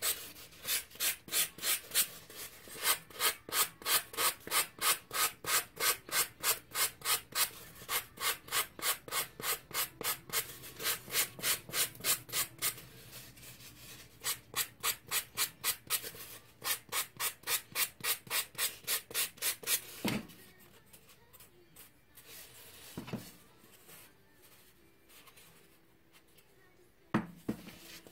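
Hand sanding with a folded sheet of 3M sandpaper on a pink ball-jointed doll leg core: quick back-and-forth rasping strokes, about three or four a second. The strokes stop about twenty seconds in, leaving a few soft knocks, and start again just before the end.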